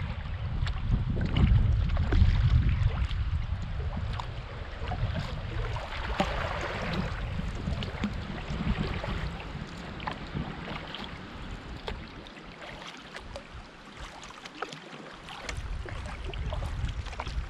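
A canoe being paddled: water swishing and splashing with the paddle strokes, with small knocks now and then. Wind gusts rumble on the microphone, ease off for a few seconds after the middle, then pick up again.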